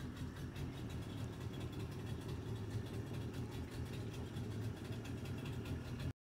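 Boat motor running steadily at low speed. It cuts off abruptly near the end.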